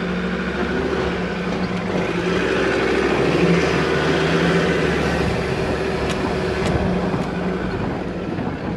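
Ute engine running as the vehicle drives, with a steady engine note over road noise. It gets a little louder about three seconds in and eases off near the end.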